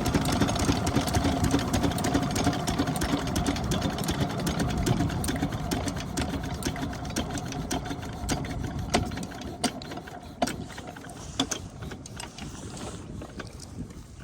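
12 hp diesel pump-set engine running and slowing down. Its sound fades steadily until the strokes come as separate knocks in the last few seconds.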